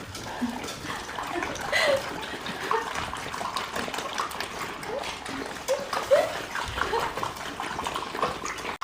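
Running water and splashing, as in a bath or sink being filled, with several short high squeaks scattered through it.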